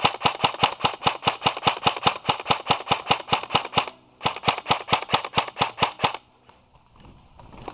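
Airsoft gun firing full auto: a long string of evenly spaced rapid shots, a short break about four seconds in, then a second burst that stops about two seconds later.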